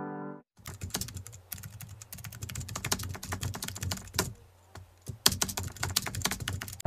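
Piano music stops in the first half second. Then comes typing on a keyboard: a quick, irregular run of sharp key clicks that pauses briefly about four and a half seconds in and then goes on.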